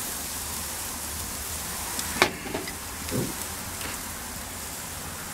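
Slices of back bacon sizzling on a hot gas grill, a steady hiss, with a single sharp click a little over two seconds in.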